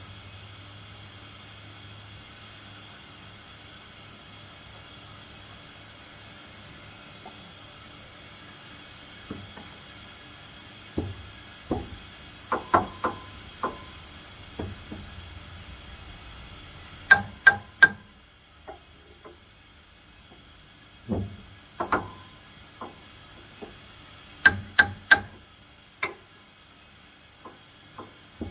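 Scattered sharp metallic clinks and knocks, some in quick runs of two or three, over a faint steady hiss that drops away about two-thirds of the way through.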